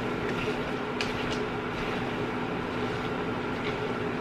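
Chopsticks stirring instant noodles in a pan, with two light clicks about a second in, over a steady hum and hiss.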